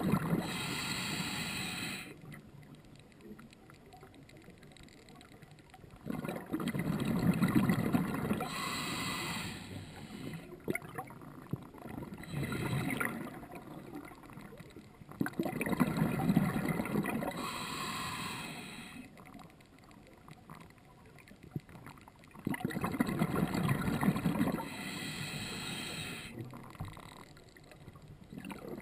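A scuba diver breathing through a regulator underwater: four slow breath cycles, each a loud surge of bubbling and hiss lasting a few seconds, with quieter stretches in between.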